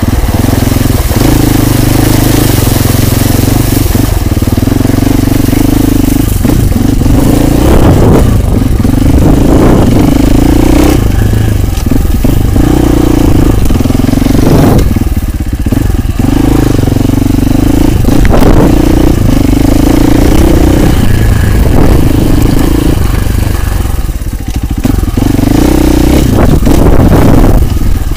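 Husqvarna FE 450 enduro motorcycle's single-cylinder four-stroke engine running under load while riding. Its pitch climbs and drops in steps as the throttle and gears change, with brief throttle-offs twice. There are scattered knocks and clatter from the bike over rough ground.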